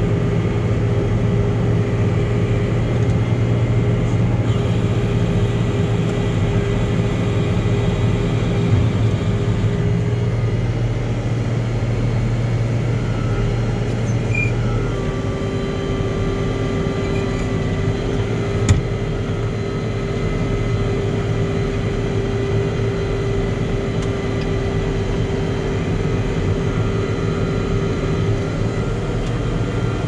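Farm tractor engine running steadily while pulling a round baler in the hay field. The engine note shifts about halfway through, and there is a single sharp click about two-thirds of the way in.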